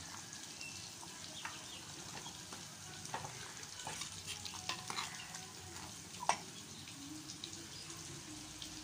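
Steel ladle stirring simmering chicken gravy in a clay pot, scraping and clicking against the pot over a steady bubbling, with one sharper knock about six seconds in.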